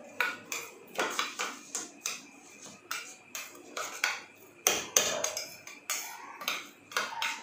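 Steel spoon stirring washed rice and ghee in a steel bowl, clinking and scraping against the bowl: irregular sharp clinks, two or three a second, some with a short ring.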